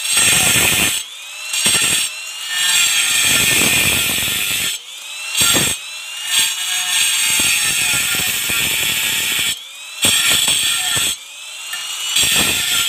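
Handheld angle grinder with a diamond disc cutting into a stone cladding slab in repeated short passes. The grinding noise breaks off several times as the disc is eased out, and the motor's whine rises back up in pitch before the next bite.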